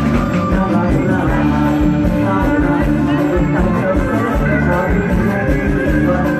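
Live band music amplified through a PA, with a steady drum beat under sustained instrument notes.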